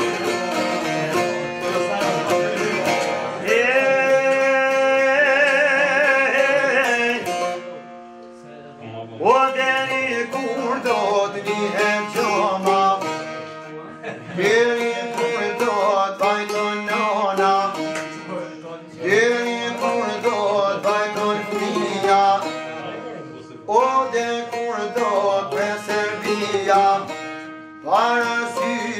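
Albanian folk song: a man sings long phrases over plucked çifteli and sharki, the long-necked Albanian lutes, with short breaks between phrases. A note held with vibrato comes about four seconds in.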